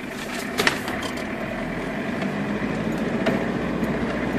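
Off-road 4x4's engine heard from inside the cabin, running under throttle and slowly getting louder as the driver keeps his foot on the accelerator, with a sharp knock about two-thirds of a second in.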